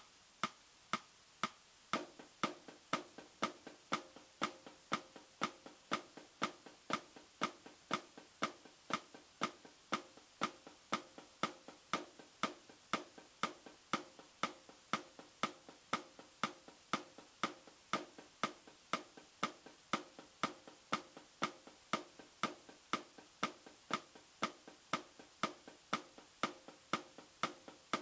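A metronome clicks steadily about twice a second. About two seconds in, snare drum strokes join in time with it, a steady run of accented and unaccented notes in a flam rudiment exercise.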